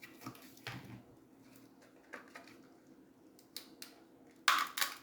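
Light knocks and rustles of cardboard pieces and craft tools being handled on a table, with a louder scraping rasp near the end.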